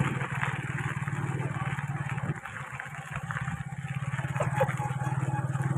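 Small motorbike engine running steadily as it rides along a dirt road, easing off briefly about halfway through, then picking up again.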